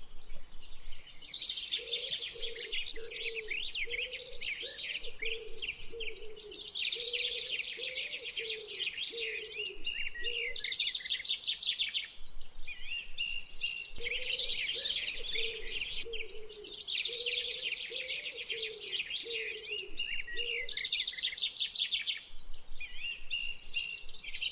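A chorus of small songbirds chirping and twittering without a break, with a run of soft lower notes that comes in twice.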